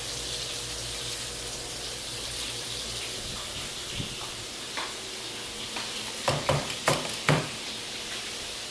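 Flour-coated chicken pieces deep-frying in hot oil, a steady sizzle, with a few light knocks of a utensil against the pan about six to seven seconds in.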